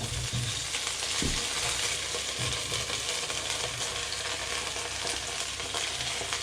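Chopped broccoli frying in hot olive oil in a pan, a steady sizzle that starts as it goes in. There is a single knock about a second in.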